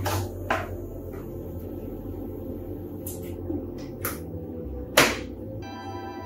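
Several sharp knocks and clicks, the loudest about five seconds in, as a plywood sheet is slid and set in place on a CO2 laser cutter's bed through its pass-through slot, over a steady low hum. Soft background music comes in near the end.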